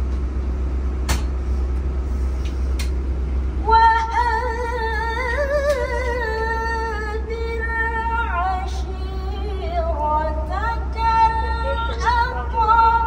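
A woman reciting the Quran in the melodic tilawah style, starting about four seconds in: long held notes with trills and sweeping rises and falls of pitch. The low steady hum of the coach bus runs underneath.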